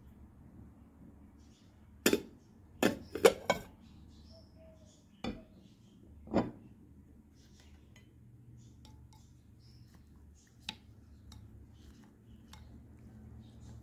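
Ceramic dishes clinking and knocking: a cluster of four sharp clinks about two to three and a half seconds in, two more near five and six seconds, then a few faint clicks.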